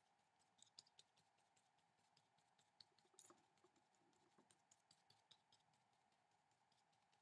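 Near silence: faint room tone with a steady low hum and scattered soft ticks and light scratches, a little busier about three seconds in.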